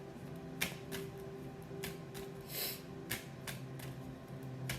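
Tarot cards being handled and laid down: a string of irregular sharp clicks and a short swish a little past halfway, over soft sustained background music.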